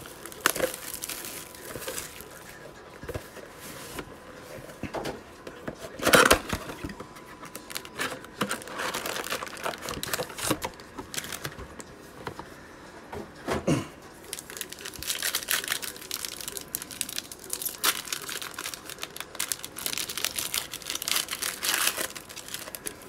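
Plastic shrink-wrap crinkling and tearing as a trading-card mega box is unwrapped and opened, with a few sharp louder rips. Near the end, foil card packs crinkle steadily as they are torn open.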